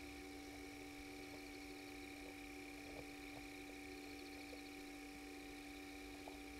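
Faint, steady electrical hum made of several constant tones, one low and two higher, with a faint high trilling and a few soft clicks.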